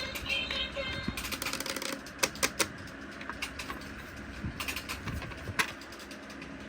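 A toy's electronic song ends about a second in, followed by a run of quick, irregular clicks and taps from the plastic toy and its packaging being handled.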